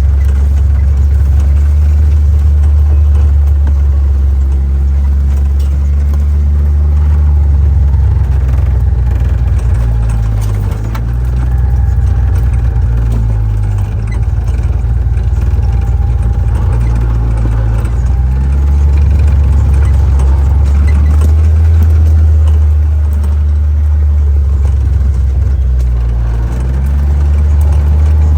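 John Deere Gator utility vehicle's engine running while driving, a steady low drone that shifts in pitch several times as the speed changes.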